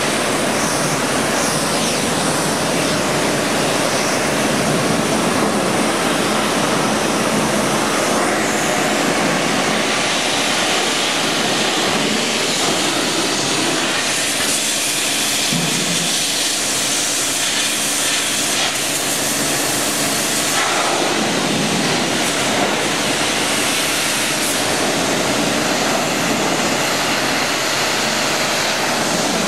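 High-pressure water jet from a pressure washer lance spraying against steel machinery: a steady, loud hiss of spray and splashing water as concrete buildup is washed off.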